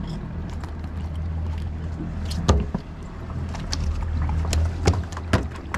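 Twin Mercury Verado V8 outboards idling with a low, steady hum, with a few sharp knocks on the boat, the loudest about two and a half seconds in and two more near the end.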